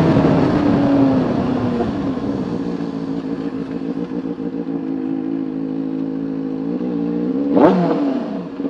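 Benelli TNT 600i's inline-four through a Toce aftermarket exhaust, running at low speed. Its note falls for the first couple of seconds, holds steady, then a brief sharp rev rises and falls near the end.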